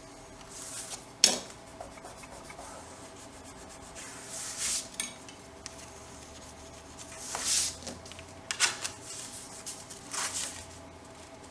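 Paper and cardstock being handled, sliding and rubbing in several short swishes, with one sharp click about a second in.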